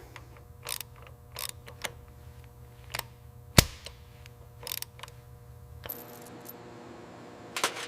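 Scattered sharp mechanical clicks and knocks, the loudest a single sharp click about three and a half seconds in, over a low steady hum that stops about six seconds in.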